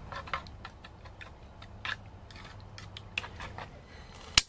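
A utensil clinking and scraping on a plate in scattered short clicks, then one sharp, loud click near the end from a long-nosed utility lighter at the camp stove burner.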